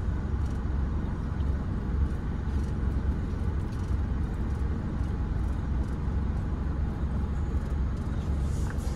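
Large truck's diesel engine idling, a steady low rumble heard from inside the cab.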